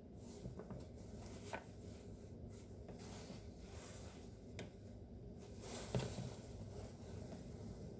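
Kitchen knife tapping on a cutting board while cutting carrot into lozenge (diamond) pieces: a few scattered, sharp taps, the loudest about six seconds in.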